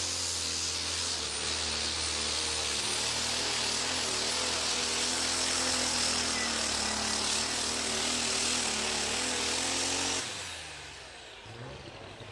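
Super stock pulling tractor's diesel engine running flat out as it drags the weight-transfer sled, loud and rough, its pitch wavering under load. About ten seconds in the engine is shut off and the noise drops away suddenly, ending the pull.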